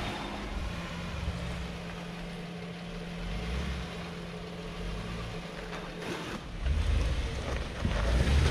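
Jeep engine running at low revs while the Jeep backs up slowly, a steady low rumble that grows louder about six and a half seconds in.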